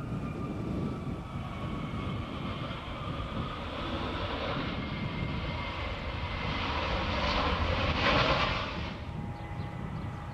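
Jet airliner engines on the runway: a turbine whine that slowly falls in pitch, then a louder rush of engine noise about eight seconds in that fades away.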